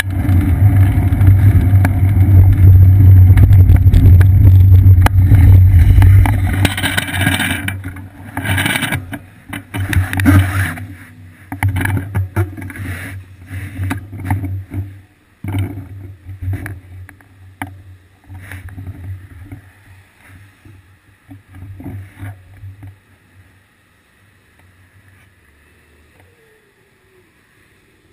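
Wind rumble and tyre noise on a seat-post-mounted GoPro Hero 2 as a bicycle rides a wet street. It fades away after about six seconds as the bike slows to a stop, leaving scattered faint knocks and quiet.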